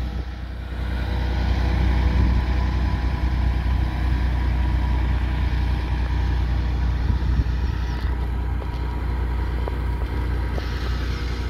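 FAW 380 hp heavy truck's diesel engine pulling a loaded tipper trailer slowly uphill: a steady low rumble that eases slightly as the truck moves away.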